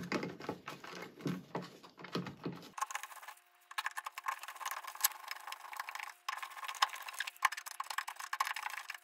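Gloved hands pushing a plastic occupancy sensor into a metal electrical box, with rustling and knocking. From about three seconds in, a hand screwdriver drives the sensor's mounting screws, a run of small, irregular clicks and scrapes.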